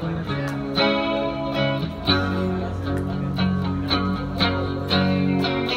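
Electric guitar played through an amplifier, chords struck in a steady rhythm of about two strokes a second over ringing low notes: an instrumental passage of a song.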